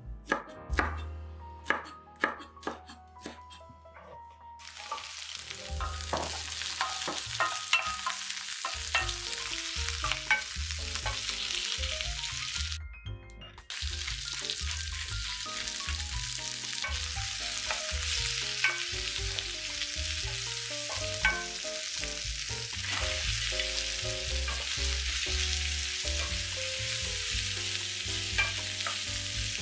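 A chef's knife slices bell pepper on a wooden cutting board in sharp, separate cuts for the first few seconds. Then onion and bell pepper pieces sizzle in hot oil in a frying pan, a steady hiss that breaks off briefly about 13 s in. Near the end, fried eggplant pieces are stirred through with a wooden spatula, giving light clicks and scrapes.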